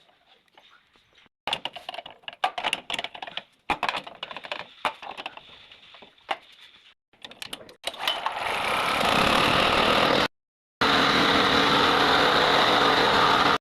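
Clicking and clattering of handling and parts, then a small portable generator's petrol engine starts about eight seconds in and runs steadily, loud, with a brief cut-out near the end.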